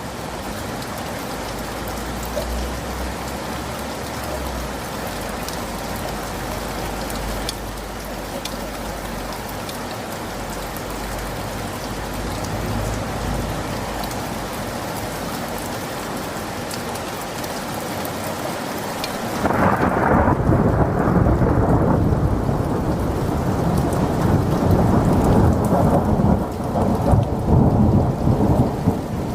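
Thunderstorm: steady heavy rain with low rumbles of distant thunder. About two-thirds of the way in, a loud roll of thunder breaks in and rumbles on in waves, drowning out the hiss of the rain.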